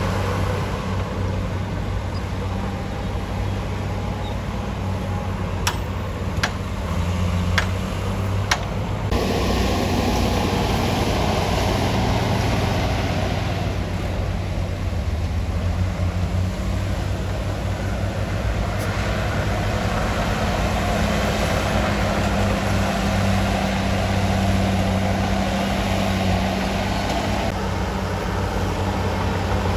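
Bulldozer's diesel engine running steadily under load, with a few sharp knocks about six to eight seconds in; the engine gets louder about nine seconds in.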